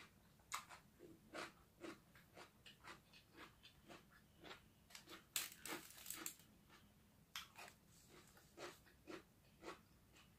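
Close-up mouth sounds of a person chewing crunchy food, a run of short, soft crunches about two a second. The crunching gets louder and noisier for about a second, around five to six seconds in.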